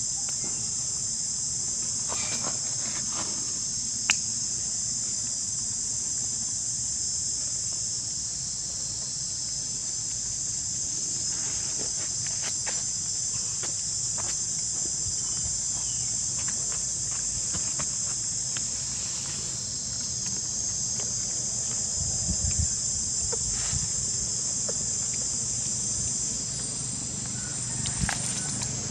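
Steady, high-pitched chorus of insects, with a few faint clicks and taps and one sharper click about four seconds in.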